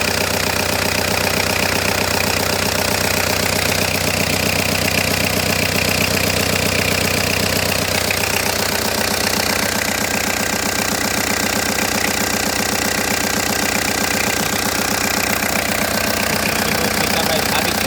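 Citroën Berlingo's 1.9-litre diesel engine running at a steady idle, with an even, rapid beat.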